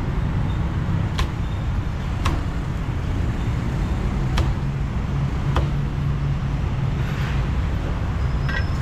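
A cleaver chopping roast pork on a wooden chopping block: four sharp chops, each knocking on the block, over a steady low rumble of road traffic.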